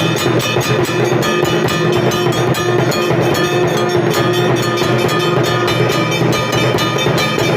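Hindu temple bells rung rapidly and continuously, their strokes repeating several times a second, while a conch shell (shankh) is blown in one long steady note that ends about six seconds in.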